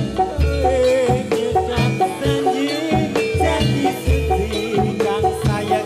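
Gamelan music accompanying a jathilan dance, played loud through a sound system: metallophones sound steady struck notes over heavy low drum beats that recur under a second apart.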